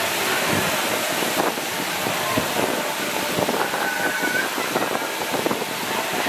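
Wind rushing and buffeting over the microphone of a rider on the circling Dumbo the Flying Elephant ride, over a steady hiss of splashing water from the ride's central fountain.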